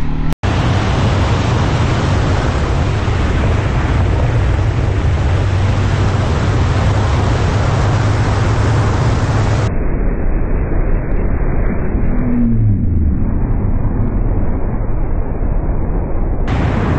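Motorcycle riding at speed: heavy wind rush over the helmet-camera microphone, with the engine's low drone underneath. About ten seconds in, the sound turns muffled and duller for several seconds, with a brief falling tone in the middle of that stretch.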